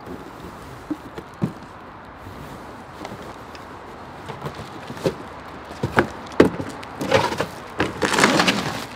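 A boxed folding camp chair being unpacked: scattered knocks and scrapes as it is pulled out of a tall cardboard box, then a stretch of loud plastic-wrap crinkling over the last two seconds.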